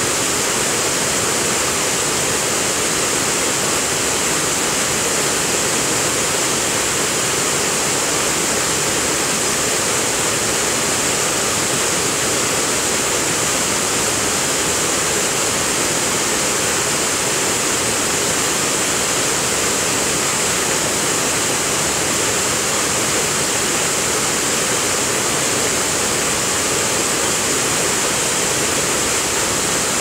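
Waterfall falling into a small plunge pool: a steady, unbroken rush of water that does not change.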